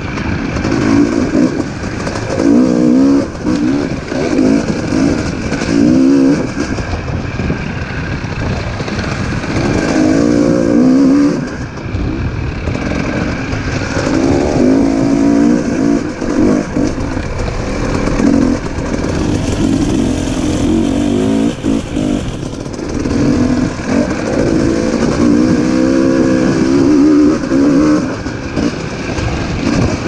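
Dirt bike engine running close up under riding load, its note repeatedly climbing and dropping every few seconds as the throttle is opened and eased off.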